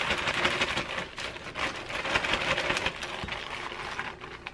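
Crushed golden Oreo crumbs pouring out of a plastic zip-top bag into a glass bowl: a dense stream of small ticks and rustling that thins out near the end.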